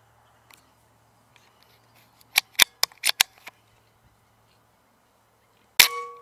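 A quick run of about six sharp clicks around two and a half to three and a half seconds in, then a single sharp rifle shot near the end with a brief ringing tone as it dies away.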